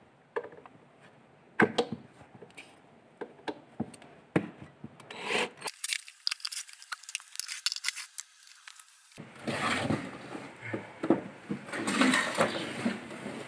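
Wooden speaker cabinet being worked on as its rear bolts are taken out: scattered clicks and knocks, then a run of rubbing and scraping of the panels near the end.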